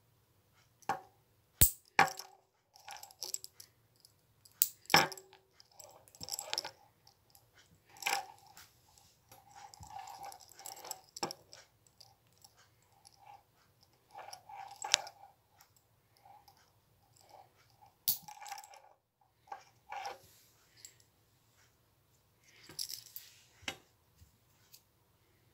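Nail clipper working on toenails: a few sharp snips, with bursts of crunchy scraping between them as the nails are trimmed and cleaned.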